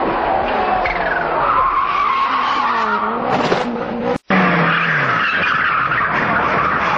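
Rally car engines revving hard as pitch rises and falls, with tyres skidding. About four seconds in the sound cuts out for an instant, then another rally car is heard at speed.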